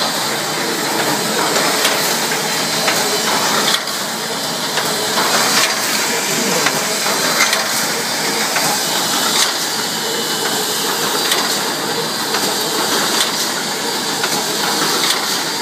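Automatic wire mesh welding machine running: a steady hiss with irregular clicks and knocks from its welding heads and wire feed as it welds cross wires onto the line wires.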